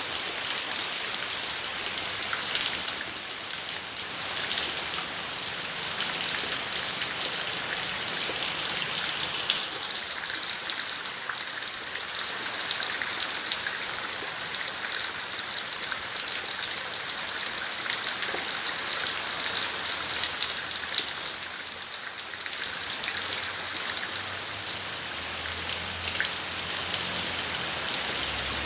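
Steady rain falling in a garden, an even dense patter of drops on surfaces.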